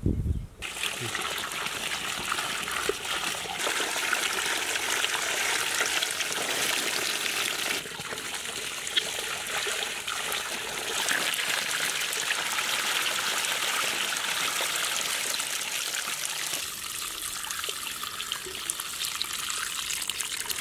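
Water gushing from a pipe, splashing over hands and into a wide metal basin while crabs are washed. It is a steady rush with slight dips in level about eight seconds in and again near the end.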